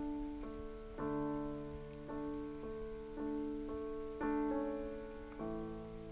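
Background music: a slow solo piano piece, notes struck about twice a second and left to ring.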